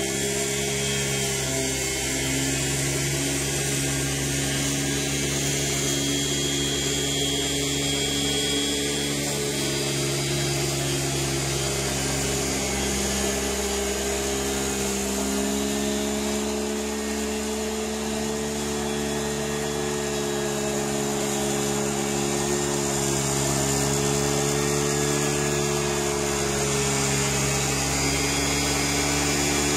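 Remote-control tracked lawn mower running, its motor giving a steady hum that wavers slightly in pitch midway and grows a little louder near the end as the mower comes close.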